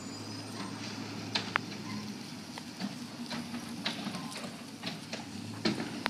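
A pickup truck driving slowly past, a low engine hum with a hiss of tyre and road noise, broken by scattered sharp clicks.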